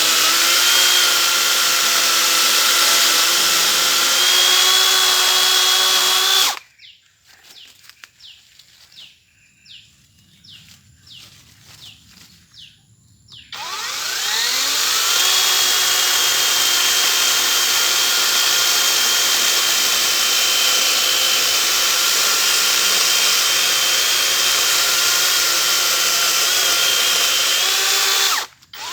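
A 40-volt cordless brushless chainsaw running at speed with a steady electric whine, cutting wood. It stops abruptly about six seconds in, leaving a quiet stretch with light clicks. About halfway through it spins up again with a rising whine, runs steadily, and cuts out briefly just before the end.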